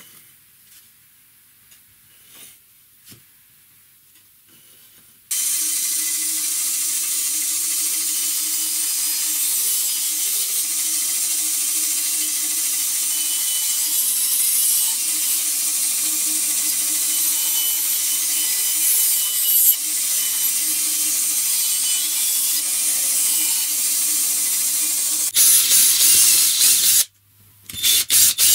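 A few faint clicks, then a band saw starts suddenly about five seconds in and runs steadily for some twenty seconds, its blade cutting the rounded end of a wooden board. Near the end a power drill runs in short bursts, boring holes in the wood.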